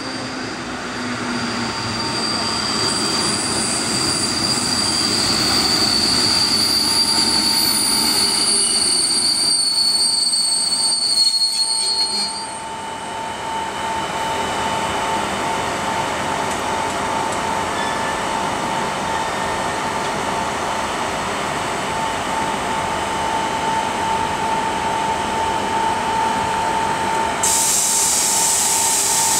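Czech class 460 electric multiple unit braking into a station and coming to a stop, its wheels and brakes squealing in steady high tones for the first dozen seconds. As it stands, a steady whine from the unit's equipment comes up, and a loud high hiss starts suddenly near the end.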